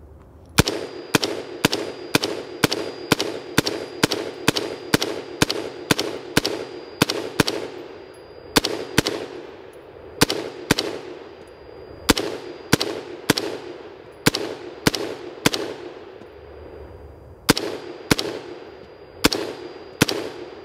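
Brownells BRN-Proto AR-15 replica rifle firing Federal M193 5.56 mm ball in rapid semi-automatic fire. It opens with a fast string of about two to three shots a second, then fires in pairs and short groups with brief pauses.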